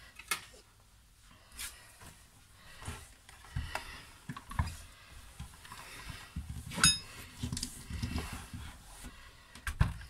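Hard plastic body of a Nespresso Inissia coffee machine being handled on a table: scattered knocks and clatters, a sharp click with a short ring about seven seconds in, and a heavy thump just before the end as the machine is set down upright.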